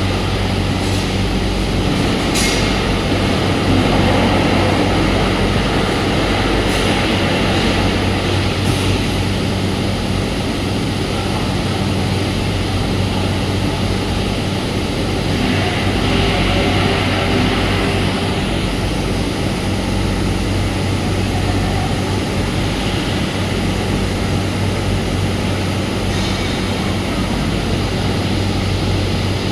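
Powder-coating line machinery running: a steady drone with a low hum, with a few brief hisses in the first nine seconds.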